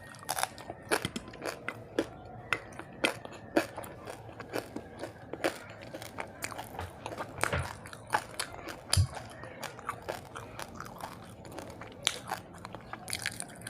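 Close-miked eating sounds of a person chewing a meal: a run of sharp mouth clicks and smacks, about two a second, with some crunching.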